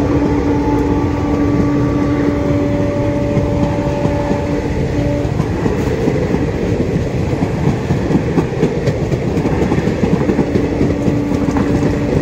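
Indian Railways passenger express coaches passing at speed: a loud, steady rumble of wheels on rail with irregular clatter over the rail joints. A steady hum runs through the first five seconds or so and comes back near the end.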